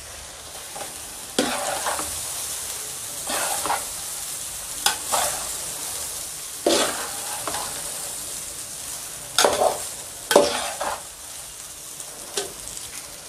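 Chicken fried rice sizzling in a hot metal kadhai as a spatula stirs and tosses it. A steady high sizzle runs under irregular scrapes and knocks of the spatula against the pan every one to three seconds.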